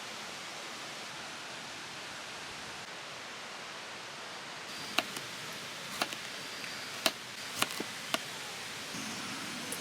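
Steady rushing hiss, with five sharp knocks about a second apart starting halfway through.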